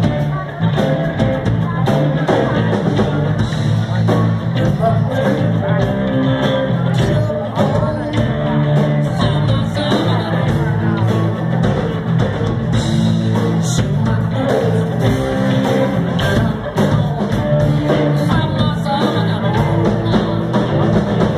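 Rock band playing live: electric guitar, electric bass and drums, with a man singing.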